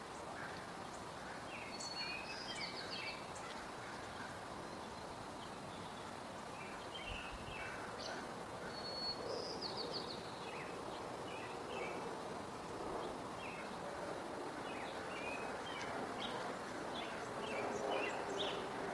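Small songbirds chirping, with a couple of short descending trills, over steady outdoor background noise. Distant engine noise swells near the end.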